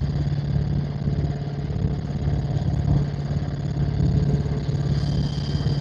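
Helicopter in flight, its engine and rotor giving a steady drone with a strong low hum, with no shots or other sudden sounds.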